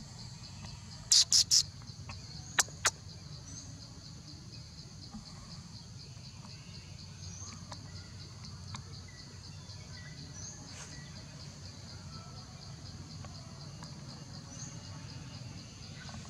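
Outdoor insect chorus, a steady fast-pulsing high trill, with a short bird chirp repeated every three to four seconds over a low background rumble. About a second in come three sharp, loud clicks in quick succession, then two more shortly after.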